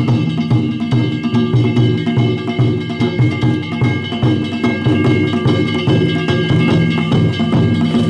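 Danjiri hayashi: a large taiko drum beating in a steady, driving rhythm with hand-held metal gongs (kane) clanging and ringing over it.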